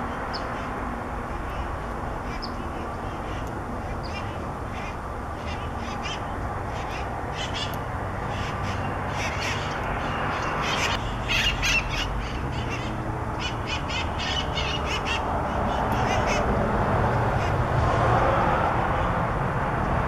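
Wild conures (red-masked parakeets) calling: many short, high squawks come in scattered clusters, thickest around the middle. Steady background noise runs underneath.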